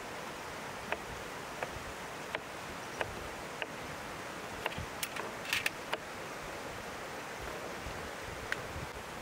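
Metal kebab skewers clinking lightly against each other and a metal tray as raw lamb liver is threaded onto them: about ten irregular sharp clicks, several close together near the middle, over a steady outdoor hiss.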